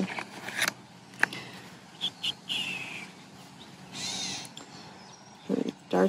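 Gray catbird calling, with a short falling cat-like mew about two and a half seconds in and another call about four seconds in.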